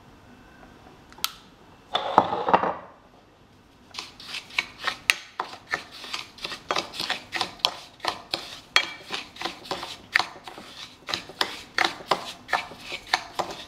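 Plastic spoon stirring fine couscous grains coated with oil and salt in a bowl: a steady run of quick gritty scrapes and taps against the bowl, two or three a second, starting about four seconds in. Before it, a single click about a second in and a brief rustling clatter around two seconds in.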